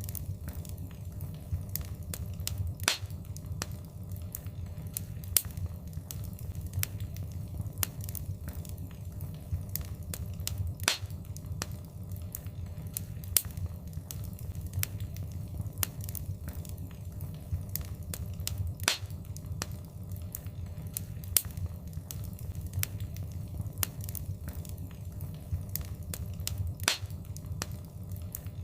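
Wood fire crackling in a fireplace: frequent sharp snaps and pops, a few louder ones spaced several seconds apart, over a steady low rumble of the flames.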